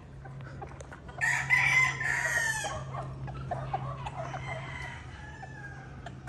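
A gamecock crows once, about a second in, a single call of about a second and a half, followed by soft, short clucking, over a low steady hum.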